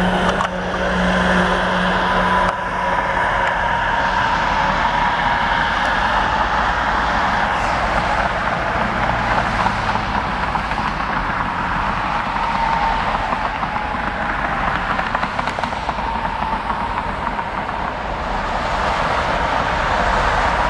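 Road traffic going by on the street, a steady noise with a thin whine held near one pitch.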